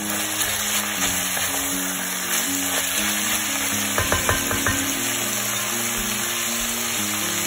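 Ground beef and diced onion sizzling as they fry in an enamelled pot, stirred with a wooden spoon, with guitar music over it. About four seconds in there is a short run of sharp knocks from the spoon against the pot.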